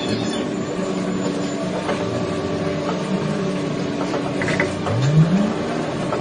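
A motor running with a steady, multi-pitched hum, its pitch briefly rising about five seconds in.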